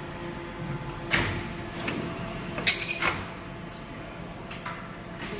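A multi-station rotary hydraulic press for making brake pads running with a steady hum, broken by about five sharp metallic clacks and knocks, the loudest about two and a half seconds in.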